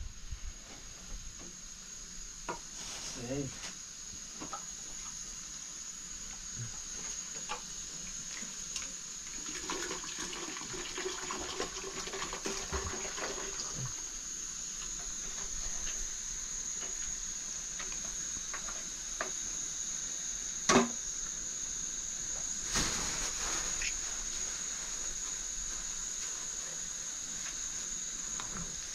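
Raw meat being handled out of a plastic bag: wet squelching, bag crinkling and a scatter of small clicks, over a steady high-pitched whine. A sharp knock about 21 seconds in is the loudest sound.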